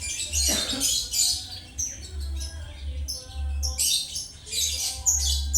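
Many caged birds chirping and squawking shrilly, short overlapping calls in quick succession, over a low rumble that swells and fades.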